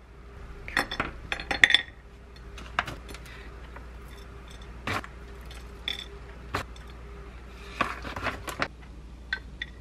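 Scattered sharp clinks on a ceramic plate: first a knife blade knocking against the plate as a steamed kabocha squash is cut into wedges, then macadamia nuts dropping onto the plate. A steady low hum runs underneath.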